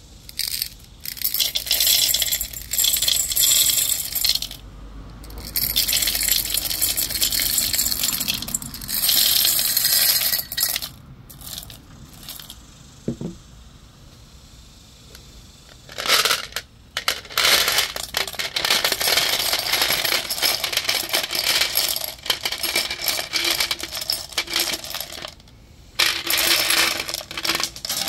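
Smooth black pebbles poured into a concrete bowl, clattering in several pours. After a pause of a few seconds, chunky clear glass cubes are poured in on top from a glass container, in a long run of clinking and clattering.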